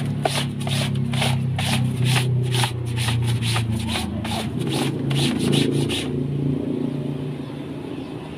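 Rhythmic scraping or brushing strokes, about three a second, stopping about six seconds in, over a steady low motor hum.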